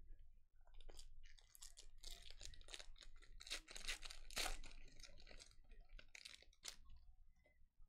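Wrapper of a 2017 Playoff football trading-card pack being torn open and crinkled by hand: a run of short crackling tears and crumples, with the cards being slid out near the end.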